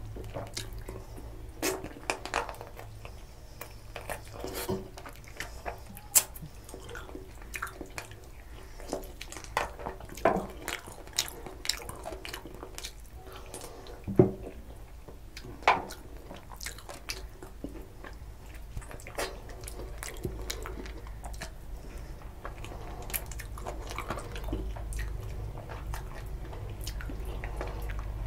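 Close-miked eating of chicken curry and rice by hand: wet chewing and mouth sounds, with fingers working rice and gravy on a steel plate. Sharp clicks are scattered throughout, the loudest about 14 seconds in, over a low steady hum.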